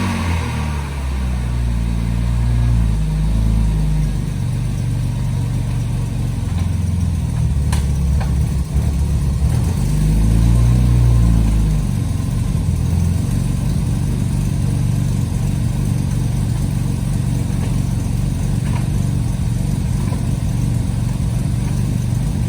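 BMW E36 M3's straight-six engine running just after a cold start, its revs rising and falling twice in the first twelve seconds, then settling to a steady idle.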